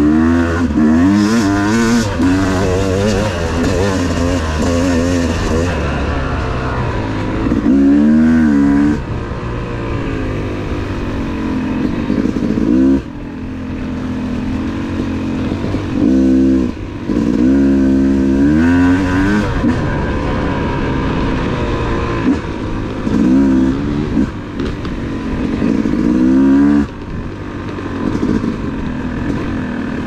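Yamaha YZ250 two-stroke dirt bike engine heard from the rider's seat, revving up and falling back again and again with the throttle, with several sharp rises in pitch and sudden drops.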